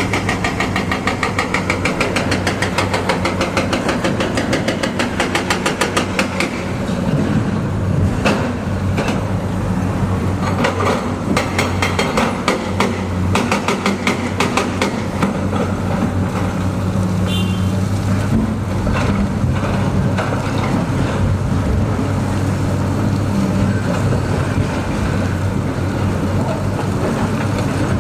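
Heavy construction machinery running: a steady diesel engine drone with a fast, rhythmic clatter for the first six seconds or so, then a run of scattered metallic clanks and knocks over the steady drone.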